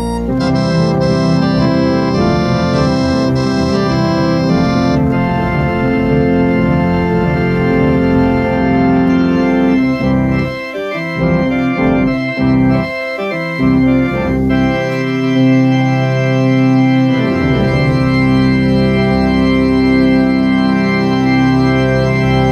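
Two-manual organ playing sustained full chords on the keyboards, with deep bass notes from the pedalboard. The pedal bass drops out briefly a few times in the middle.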